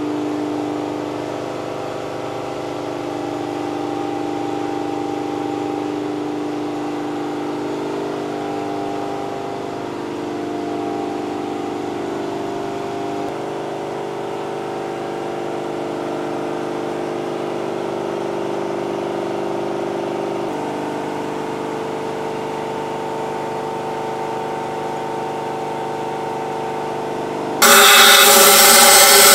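Sustained background chords that change in steps, then near the end a sudden loud, steady hiss of a compressed-air blow gun blasting into a turbocharger compressor housing to clear debris out of it.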